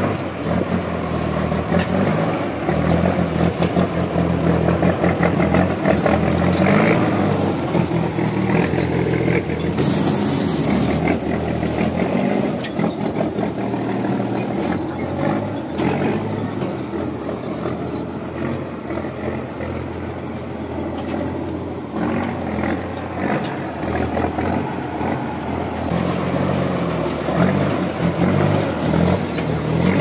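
M35A2 6x6 army truck's engine running close by as the truck crawls slowly over rocks, its pitch rising and falling with the throttle.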